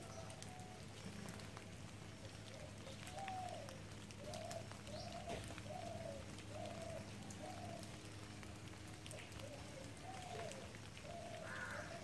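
A bird calling a short, arched note over and over, roughly once a second, starting about three seconds in, over a steady low hum.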